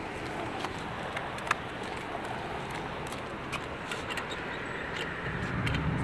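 Steady noise of road traffic from passing cars, with a few faint clicks.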